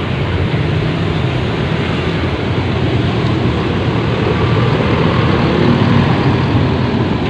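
Intercity coach's diesel engine running as the bus drives slowly past close by, a steady low rumble that grows a little louder toward the end.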